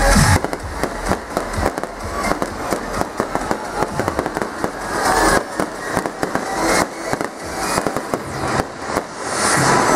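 Aerial fireworks going off in a dense volley: a rapid, irregular run of sharp cracks and bangs, several a second.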